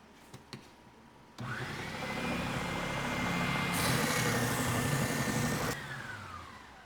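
An electric power tool's motor switching on, running at speed with a steady whine for about four seconds, with a harsher hissing stretch in its second half, then switching off and winding down with a falling whine.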